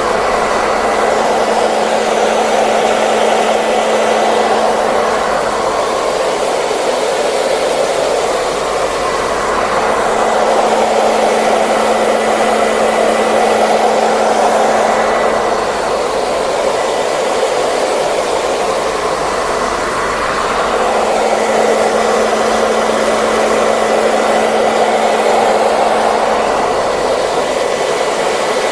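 A hair dryer running continuously: a steady rush of blown air that swells and eases slowly about every ten seconds, with a faint motor hum coming and going beneath it.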